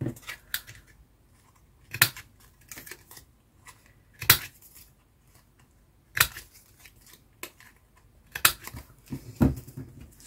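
Handheld corner rounder punch clipping the corners of pieces of card: about eight sharp clicks, unevenly spaced a second or two apart.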